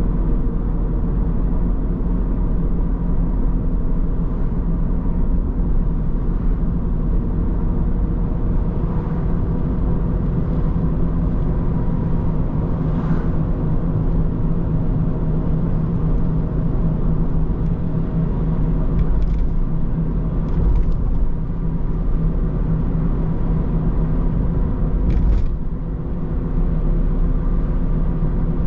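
Car driving along a road: a steady rumble of engine and tyres at an even pitch, with a few faint short knocks along the way.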